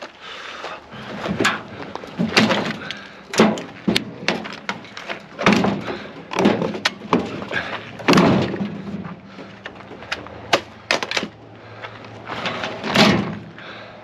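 Sheet-metal knocks, clanks and rattles as a microwave oven is pulled apart by hand, with a dozen or so sharp hits scattered irregularly and the loudest about two seconds in, eight seconds in and near the end.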